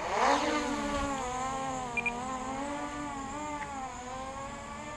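Blade Mach 25 quadcopter's motors and propellers spooling up with a sharply rising whine at takeoff, then a steady buzzing hum that wavers slightly in pitch as it hovers, running on its stock 3-cell lipo. Two short beeps about two seconds in.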